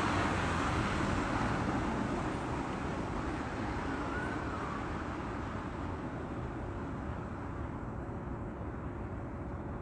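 Traffic noise on a snow-covered street: a steady hiss and rumble, loudest near the start as a car goes by and easing off gradually after.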